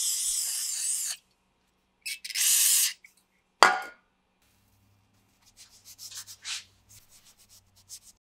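Two steady hissing bursts, then a sharp knock, then quick, irregular scrubbing strokes as an abrasive pad rubs the rusty steel pinion yoke of a driveshaft.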